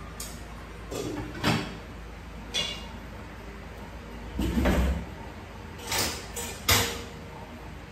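Kitchen handling noises: a series of knocks and clatters from cupboards and cookware being handled, with a longer sliding rumble about halfway through, like a cupboard or drawer being moved.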